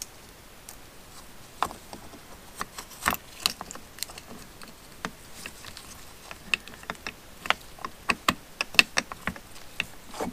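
Irregular small metallic clicks and taps as a Suzuki TS185 oil pump is handled against the engine case, being jiggled into line with its drive before its screw will thread in. The clicks come more thickly in the second half.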